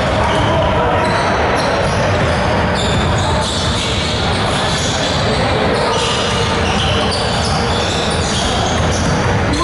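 A basketball dribbled on a hardwood gym floor, with players' voices and short high squeaks echoing through a large hall.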